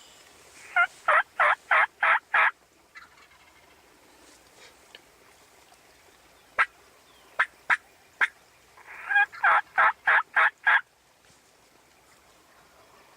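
Two series of turkey yelps, each of five or six short loud notes about three a second, with a few sharp clicks between the series.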